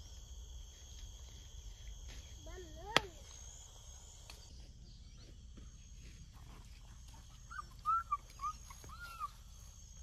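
Forest insects droning steadily at a high pitch, with one sharp knock about three seconds in and, near the end, a run of five short rising-and-falling whistled calls from an animal.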